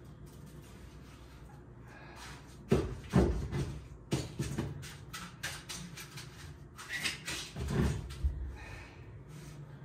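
A run of irregular knocks, bumps and short scrapes from hands-on work close by, clustered in the middle few seconds, over a faint steady low hum.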